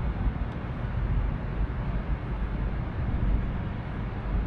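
Steady outdoor background noise: a low rumble with a fainter hiss over it, without any distinct events.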